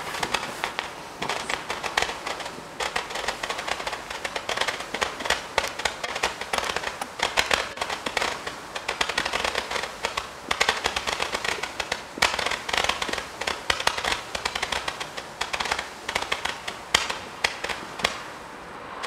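Roman candle bundle battery (Röder 'Römisches Lichterbündel Pink', a 300-shot pink-star cake) firing a rapid, continuous stream of small launch pops as it shoots pink stars skyward. The stream stops at the very end as the cake burns out.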